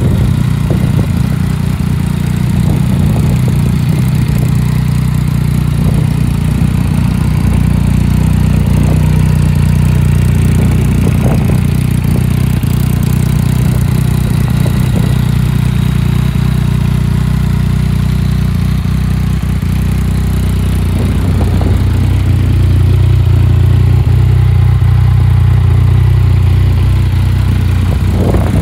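Yamaha MT-09 three-cylinder engine idling through an Akrapovic full exhaust system with a carbon tip. About three quarters of the way through the idle speed rises slightly and holds, then drops back near the end.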